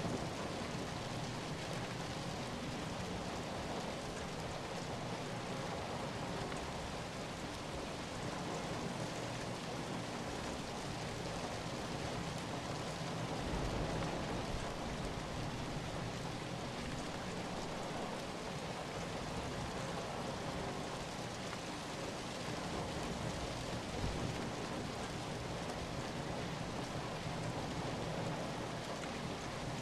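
Steady heavy rain falling as a dense, even hiss, with brief low rumbles about halfway through and again later on.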